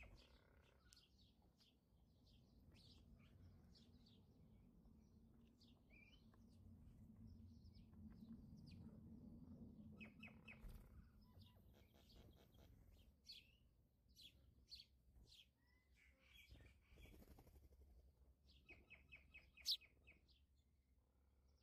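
Faint chirps and short trills of birds, with a few soft knocks from handling on a cutting board.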